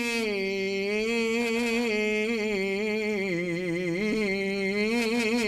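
Man's unaccompanied voice singing an Arabic Ramadan devotional ode in Egyptian inshad style, holding one long melismatic phrase on a single vowel that turns and wavers up and down in pitch without a break.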